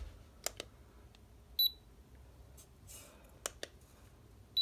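Handheld infrared thermometer taking a reading: a double click, then one short high beep, then a soft rustle and another double click near the end.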